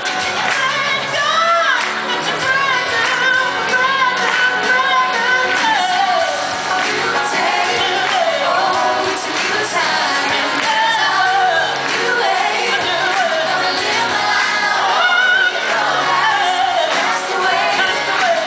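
Live contemporary Christian pop song: a male lead and a mixed vocal group of men and women singing into microphones over amplified instrumental accompaniment through a PA.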